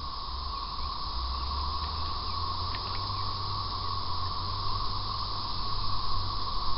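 Steady outdoor ambience on open water: a constant high hiss with low rumble from wind on the microphone, and a few faint chirps.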